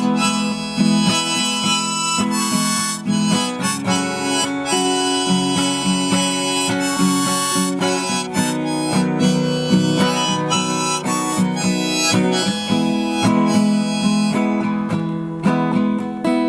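Harmonica playing the melody over a strummed acoustic guitar, as a folk-song introduction before the vocals.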